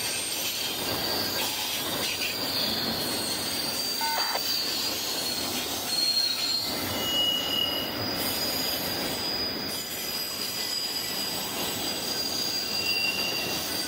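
Double-stack intermodal freight cars rolling past on steel rails with a steady rumble. Wheels squeal in thin, high, drawn-out tones, with shorter squeals about halfway through and near the end.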